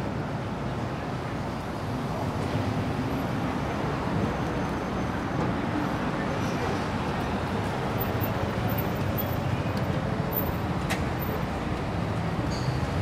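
Steady city road traffic noise, engines running and passing, with a faint murmur of voices.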